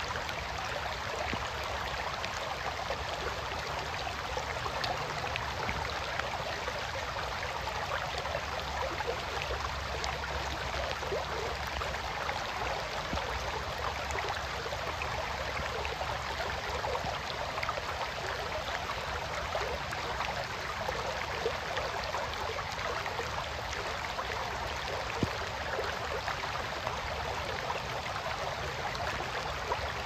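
A small creek babbling steadily, with soft rain falling and scattered fine ticks of drops.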